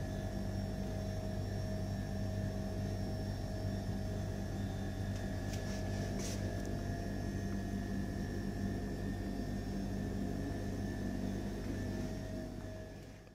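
Steady machine hum with several held tones, and a couple of faint clicks about halfway through; it fades out at the very end.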